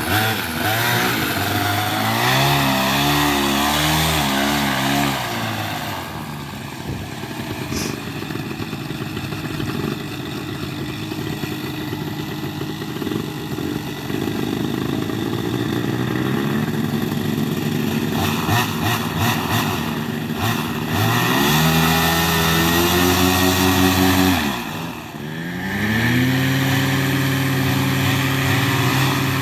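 Small paramotor engine driving its propeller on the ground, running unevenly with revs rising and falling. About three-quarters of the way through it sags almost to a stall, then picks up again. This fits the crew's remark that fuel was not yet getting properly into the system.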